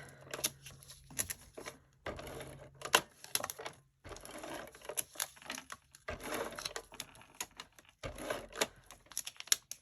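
Tape runner being run along a paper strip, with irregular clicks and soft crackling of paper and card being handled.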